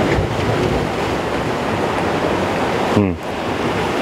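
Ocean surf washing over a rocky shore, a steady rushing noise. About three seconds in comes a brief, falling voiced sound from a man.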